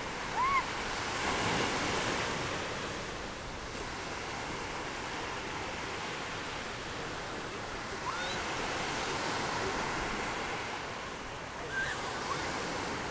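Small surf washing onto a sandy beach: a steady rush of waves that swells about a second and a half in and again around nine seconds. A few short high-pitched cries cut through; the loudest comes right at the start.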